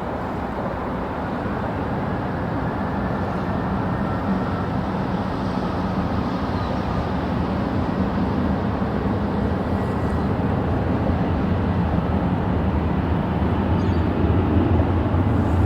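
Boeing 787 jet engines on final approach: a steady, noisy rumble with a faint high whine, growing gradually louder.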